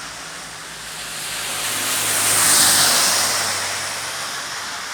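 A car passing on a wet road, its tyre hiss swelling to a peak about halfway and then fading, over a steady hiss of rain.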